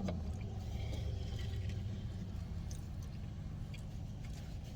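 Steady low hum of a car cabin, with a few faint clicks of someone chewing food.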